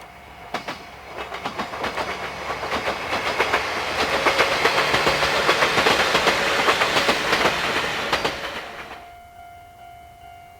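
Chichibu Railway electric train passing over a level crossing, its wheels clacking in a quick, even rhythm over the rail joints, building up and dying away after about nine seconds. A steady ringing tone, the crossing's warning alarm, is heard before the train arrives and again after it has gone.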